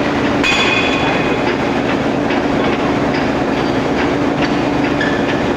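Steady, loud din of forging-line machinery with a constant hum, scattered metallic clanks and a brief high squeal about half a second in.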